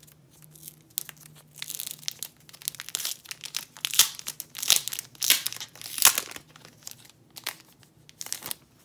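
Clear plastic wrapping crinkling and tearing as a photocard pack is unwrapped by hand: a dense run of irregular crackles that starts about a second in, is loudest through the middle and thins out near the end.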